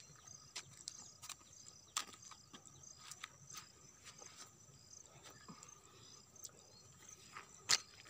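Insects chirping steadily in high, thin trills, with scattered light clicks and taps and one sharp click near the end.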